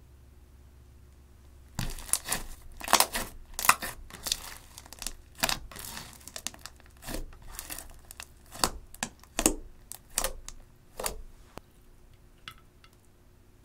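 Thick slime being stretched, folded and kneaded by hand, trapped air popping out as an irregular run of sharp crackles and wet clicks. The crackling begins about two seconds in and dies away after about eleven seconds, with a few faint ticks near the end.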